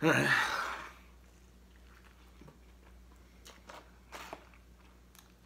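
A person biting into a soft Double Filet-O-Fish sandwich with a short, noisy rush of breath, then chewing quietly. A few faint clicks come near the end.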